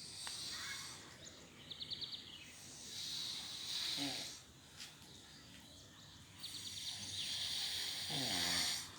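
A sleeping woman snoring: two long, noisy breaths, each ending in a low, rattling snore, with a quick fluttering burst about two seconds in.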